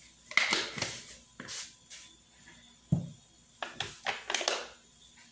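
Clicks and knocks of a plastic salt jar being handled and set down on a cloth-covered tabletop, with a heavier knock about three seconds in and a quick run of clicks a second later.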